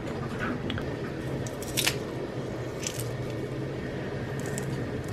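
Garlic cloves being squeezed through a garlic press: a few squishy crunches and sharp clicks, the loudest about two seconds in, over a steady low hum.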